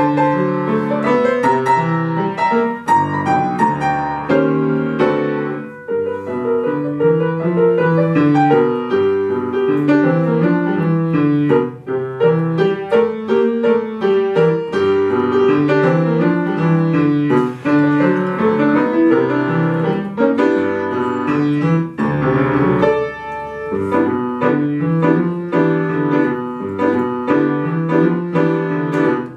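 Upright piano played solo: a jazz-style piece with notes moving quickly over a repeating bass figure in the left hand.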